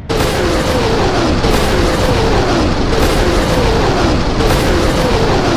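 Multiple rocket launcher firing a salvo: a continuous loud roar with repeated falling whistles, one rocket after another.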